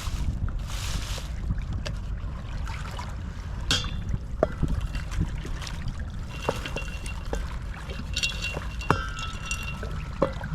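Wind rumbling on the microphone by the sea, with scattered light clicks and a rustle near the start from something being handled.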